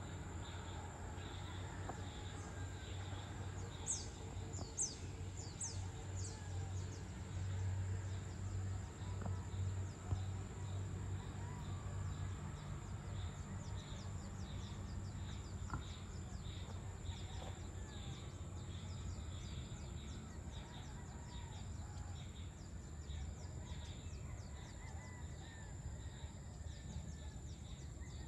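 Evening outdoor ambience: insects droning steadily in a high pulsing buzz while birds call, with a few quick falling chirps about four to six seconds in, over a low steady rumble.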